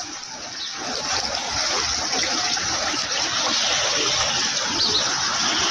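Steady rush of water in a flash flood, louder from about a second in.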